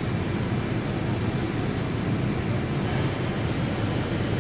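Steady low rumble inside the cabin of a Boeing 787 Dreamliner in the climb after takeoff: engine and airflow noise heard from a window seat.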